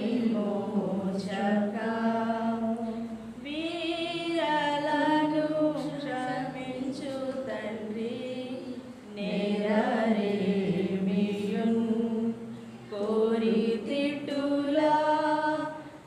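A single voice singing a hymn unaccompanied, in slow phrases of long held notes.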